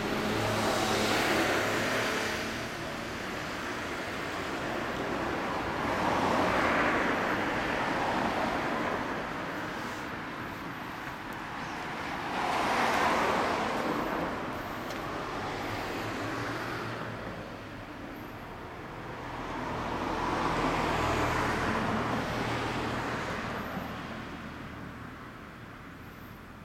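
Road traffic: vehicles passing by one after another, four times, each rising and fading over several seconds.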